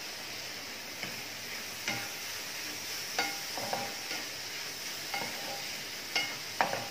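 Wooden spatula stirring and scraping a thick jaggery-and-coconut filling around a non-stick frying pan, with a soft steady sizzle underneath and several light knocks of the spatula against the pan. The filling is at the end of its cooking, ready to come off the heat.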